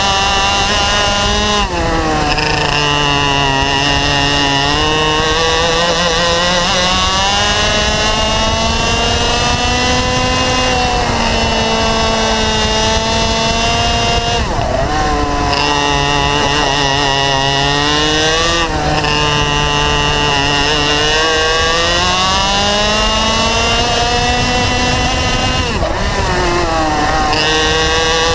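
Two-stroke racing kart engine at full throttle, close up: the pitch climbs steadily along the straights, then drops sharply as the driver lifts off for a corner, about four times.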